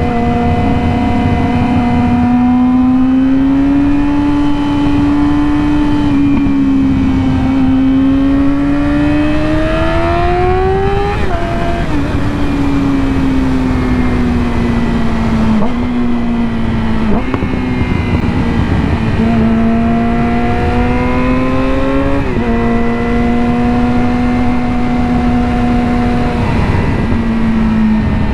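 2020 Yamaha R6's inline-four engine through an M4 slip-on exhaust with the catalytic converter removed, running under way. Its note climbs steadily to about 11 seconds in, then drops sharply at a gear change, and afterwards eases down and steps up and down several more times as the throttle and gears change.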